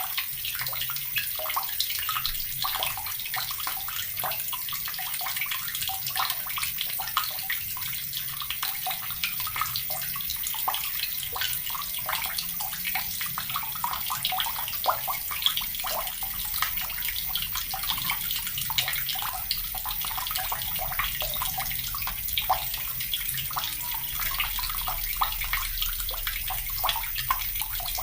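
Water running steadily from a tap and splashing, an even rushing stream with many small spatters.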